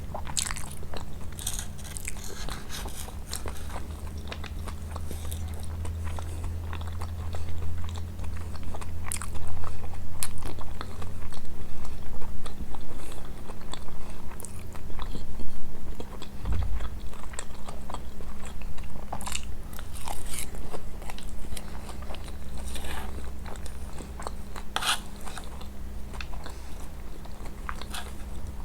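Close-miked chewing and crunching of kunafa, shredded pastry with Nabulsi cheese, full of small sharp crackling clicks. A low steady hum sits underneath.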